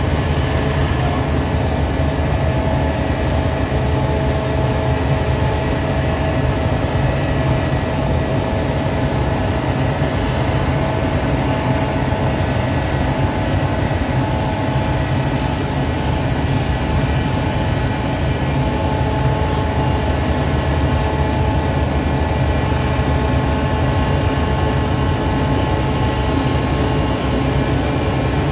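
Heavy railway diesel engine running steadily: a deep, even rumble with several steady whining tones above it, unchanging throughout.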